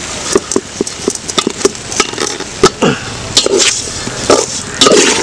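A metal spoon clinking and scraping irregularly against a metal pot as a thick tapioca mixture is stirred, over a steady sizzle from the pot. A few louder knocks come between about three and five seconds in.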